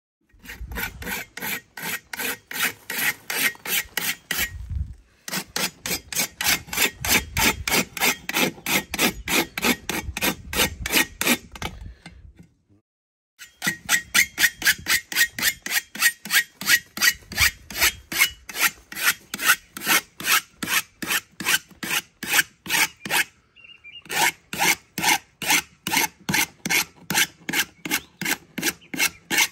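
A hand tool rasping in rapid, even strokes, about three a second, in runs of several seconds broken by short pauses.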